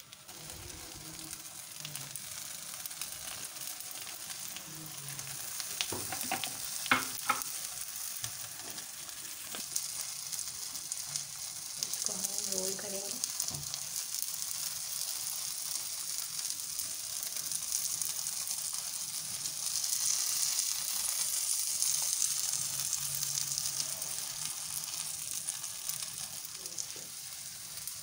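Egg omelette sizzling steadily in hot oil in a non-stick wok, the sizzle swelling louder about two-thirds of the way through. A few short knocks come about six to seven seconds in.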